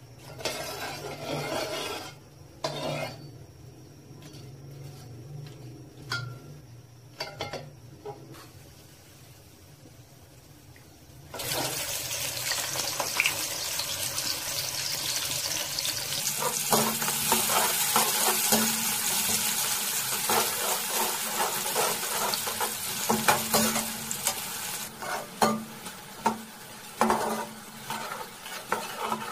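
Sliced onions tipped into hot oil in an aluminium pot start sizzling all at once about a third of the way in. A steel slotted spoon then clinks and scrapes against the pot as they are stirred. Before the onions go in there are only a few light knocks.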